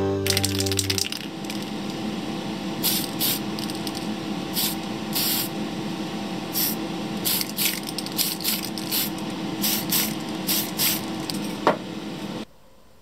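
Aerosol can of Tamiya grey surface primer spraying in many short spurts, with a steady hiss and hum underneath that cut off suddenly near the end.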